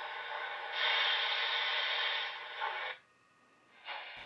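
HO scale model steam locomotive's motor and drive gears whirring steadily with the decoder sound muted. It gets louder under a second in and cuts off suddenly about three seconds in, then whirs again briefly near the end.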